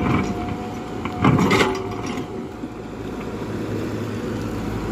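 Tata Hitachi excavator's diesel engine running steadily under a thin steady whine, with a brief loud scrape about a second and a half in as the bucket digs into stony soil.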